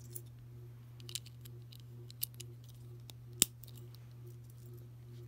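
Plastic Lego pieces clicking and tapping as they are picked up and handled: a few scattered sharp clicks, the loudest about three and a half seconds in, over a steady low hum.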